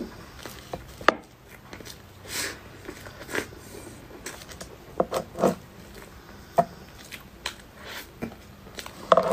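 Close-miked eating sounds: soft, wet mouth sounds of chewing whipped-cream cake taken from a spoon, broken by a few sharp clicks, about a second in, around six and a half seconds and near the end.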